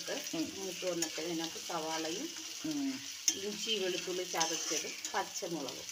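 Sliced onions, green chillies and coconut pieces sautéing in hot oil in a stainless steel pan, sizzling while a metal spatula stirs and scrapes them around the pan, the scraping giving short squeaky tones that rise and fall.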